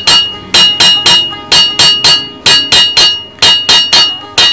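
Hammer blows on metal in a steady rhythm of three quick strikes about once a second, each with a bright metallic ring.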